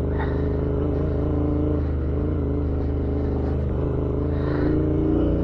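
Royal Enfield Interceptor 650's parallel-twin engine running at a steady, easy throttle as the bike rides along a gravel track. It gets slightly louder near the end.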